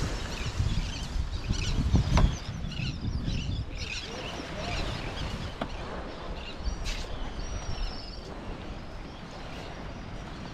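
Wind buffeting the microphone in uneven low gusts, the strongest about two seconds in, with many small birds chirping in the first half and a single high falling bird call past the middle.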